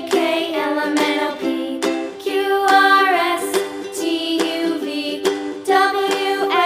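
Upbeat children's background music with plucked ukulele-like accompaniment and a melodic line, with a sung or sung-like melody that slides between notes.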